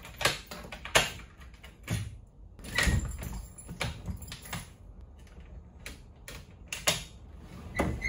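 School bus folding doors rattling and knocking as they are pulled open against a home-made lock, with irregular clicks and clunks of a hand working the lock from inside; the loudest knock comes about three seconds in and a cluster of clicks near the end.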